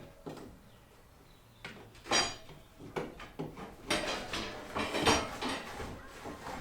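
A series of knocks and clatters from hard objects being handled and set down, the loudest about two seconds in and a busier cluster a second later.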